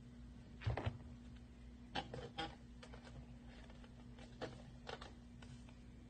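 Scattered light taps and rustles of cut-out designs being handled and pressed onto a homemade cup drum, the loudest a pair of taps about a second in, over a faint steady hum.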